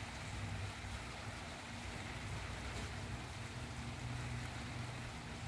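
Steady rain falling, with a low rumble underneath.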